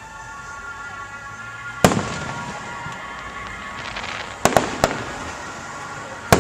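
Aerial fireworks bursting with sharp bangs: one about two seconds in, a quick run of three about halfway through, and one more near the end, with some crackling between them.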